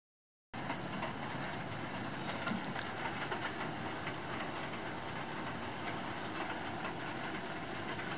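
Steady rushing background noise that starts abruptly about half a second in, with a few faint clicks and taps.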